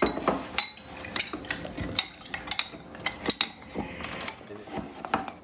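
Metal spoon clinking and tapping against drinking glasses, a quick irregular run of short ringing clinks.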